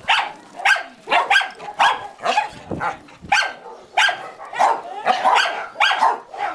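Several dogs barking and yapping in quick succession, about three barks a second, some barks overlapping.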